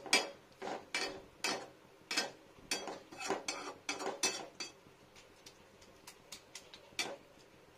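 Perforated steel skimmer scraping and knocking against a non-stick kadai while stirring chopped water spinach in salted water, about two strokes a second. The strokes turn to lighter taps about five seconds in.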